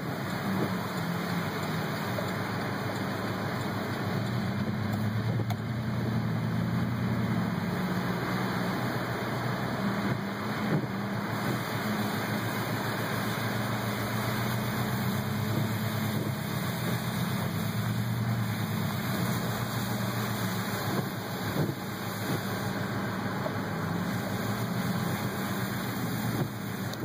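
Steady low hum of a car's engine and tyres heard from inside the cabin while driving, with no sharp sounds.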